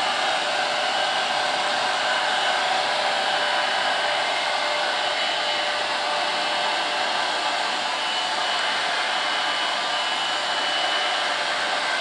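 Remington hand-held hair dryer with a concentrator nozzle running steadily, a constant rush of blown air with a thin high whine over it.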